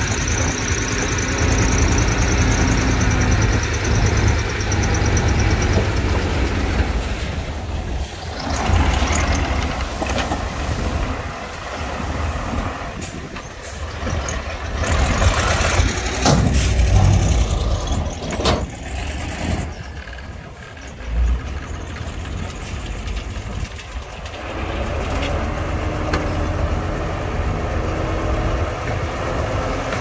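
Heavy diesel earthmoving machinery, dump trucks and a bulldozer, running under load, with a hiss near the start and scattered knocks and clanks midway. The engine level dips for a few seconds past the middle, then steadies.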